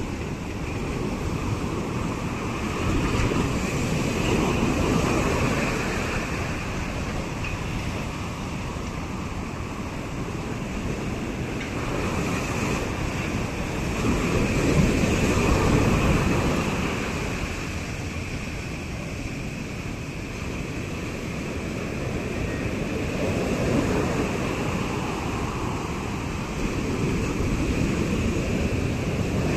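Ocean surf breaking on a beach, a continuous wash that swells and falls in slow surges every several seconds.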